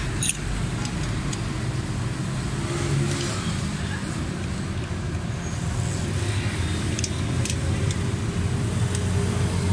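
Steady low rumble of motor vehicles running, with a few faint metallic clicks near the end from a ring spanner working the valve-clearance adjusters on the rocker arms.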